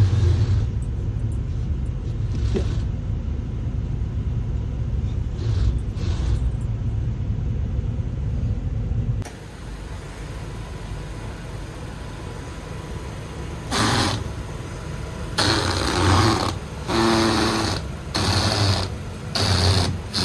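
Kei car driving over a rough concrete parking-lot road: a steady low rumble that stops abruptly about nine seconds in. From about fourteen seconds a run of harsh buzzing bursts follows, roughly one a second. This is the strange noise the driver blames on the badly finished road surface.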